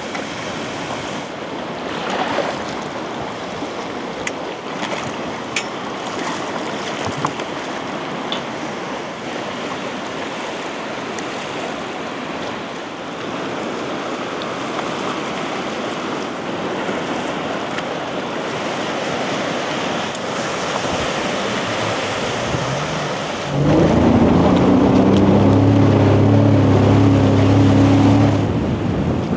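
Caspian Sea waves washing in with wind, a steady rushing noise. Near the end a loud, low, steady hum cuts in suddenly and stops about five seconds later.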